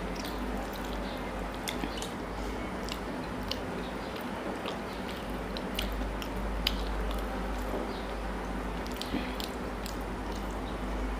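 Hand mixing rice and curry on a plate, with wet squishing and small scattered clicks, along with chewing and mouth sounds, over a steady low hum.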